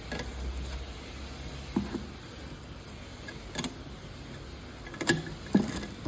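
Scattered light metal clicks and knocks as the arms of a crystal floor lamp are tightened onto their mounting plate, over a low steady hum.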